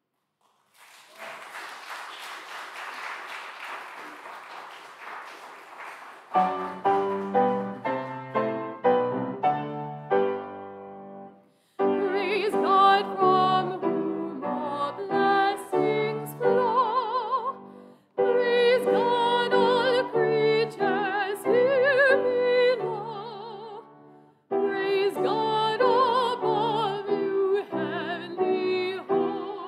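A few seconds of soft rustling noise, then a grand piano plays short detached chords. About twelve seconds in, a solo classical soprano comes in, singing with wide vibrato in phrases broken by short pauses, accompanied by the piano.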